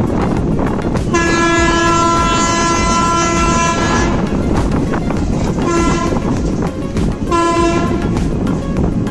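Train horn sounding over the steady running noise of a moving train: one long blast of about three seconds starting about a second in, then two short toots later on.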